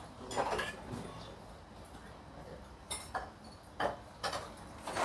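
A handful of separate light clinks and taps of chopsticks and spoons against ceramic noodle bowls.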